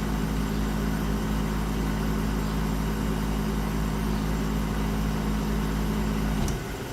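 Room air conditioner running with its compressor humming steadily over the fan's hiss; about six and a half seconds in the compressor cuts off and only the fan's hiss is left. The compressor shuts off with the thermostat set at 60 degrees while the room sits at 74, on a unit the owner says is not working properly.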